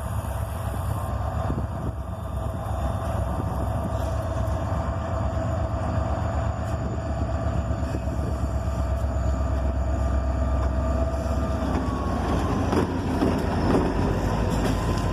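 EMD SD40-2 diesel-electric locomotives running with a steady low rumble and engine tone; about twelve seconds in the tone drops slightly and a rougher, noisier sound builds.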